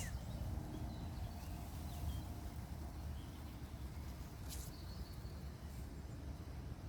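Quiet outdoor ambience: a steady low rumble with faint, sparse bird chirps, and a short sharp click about four and a half seconds in.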